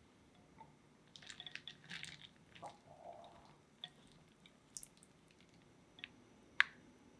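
Shredded kataifi pastry crackling and rustling as it is stirred and handled with a utensil, mostly in the first half. Several light clicks of the utensil against the dish follow, the sharpest near the end.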